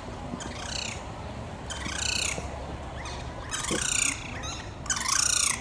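A bird calling four times, each call a short arching note about half a second long, spaced about a second and a half apart, over a low steady background hum.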